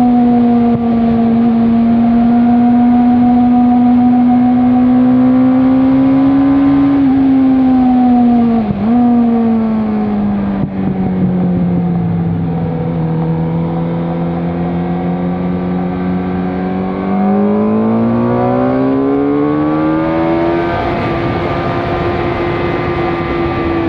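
Suzuki GSX-R inline-four sportbike engine with an aftermarket Werx exhaust, heard onboard at speed on track with wind noise. The engine note holds high, then drops with a short blip about a third of the way in as the rider brakes and changes down. It stays low through the corner and climbs steeply again about three-quarters of the way through as the bike accelerates hard.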